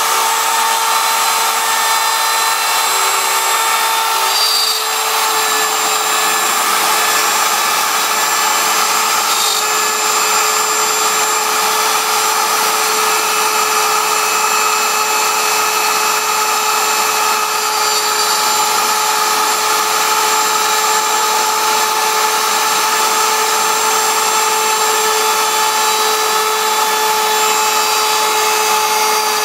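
CNC router spindle running steadily while its bit cuts into wood, a continuous whine over rushing cutting noise. The tone shifts slightly about five seconds in, then holds.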